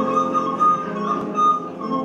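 Instrumental Wienerlied introduction: a recorder plays a melody of held high notes over a double bass accompaniment.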